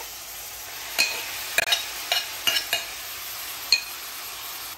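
Minced mutton sizzling in hot oil in an aluminium kadhai, a steady frying hiss, with about six sharp metal clinks of a utensil against the pan.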